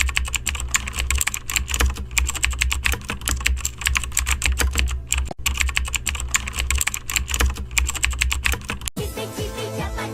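Rapid, continuous clatter of typing on a keyboard over a steady low bass hum, with a brief break about halfway; about nine seconds in it gives way to music.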